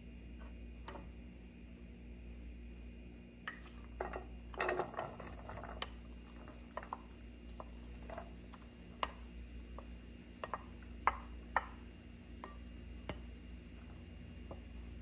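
Chopped onions pushed from a bowl into a nonstick skillet with a wooden spoon: scattered clicks and taps of the spoon on the bowl and pan, busiest about four to five seconds in, over a faint steady hum.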